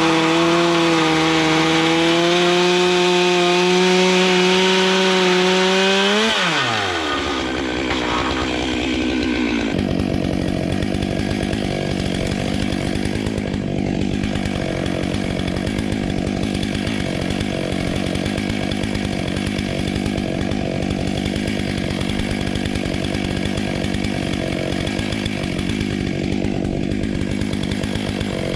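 Stihl MS 661 two-stroke chainsaw on a chainsaw mill running at full throttle, its pitch creeping slightly higher, then the throttle is let off about six seconds in and the pitch falls steeply. It keeps running at a low, steady idle for the rest of the time.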